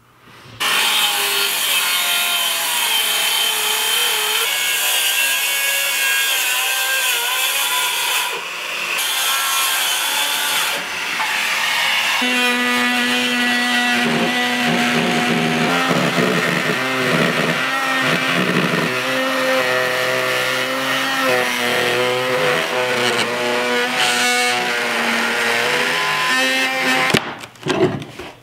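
Handheld power saw cutting into the old wooden bathroom floor, running steadily with its pitch shifting as the load changes, in several passes. It stops near the end, followed by a few knocks.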